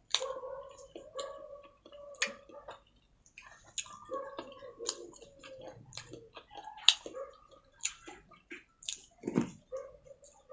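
Close-miked chewing and eating of rice with chicken gravy: wet mouth smacks and clicks, irregular and frequent, with a louder smack about seven seconds in.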